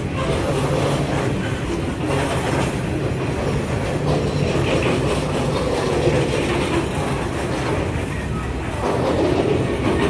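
Freight train passing close by. The last of its NR class diesel-electric locomotives goes by at the start, then a long rake of hopper wagons rolls past. Their steel wheels make a steady, loud rolling rumble on the rails.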